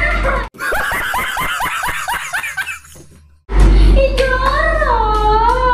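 Rapid ha-ha-ha laughter, about five bursts a second, stopping suddenly about three seconds in. After a brief pause, a high voice with long sliding pitch follows.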